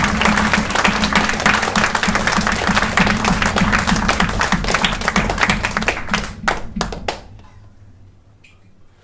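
Audience applauding, thinning to a few last claps about seven seconds in, with a low steady hum underneath.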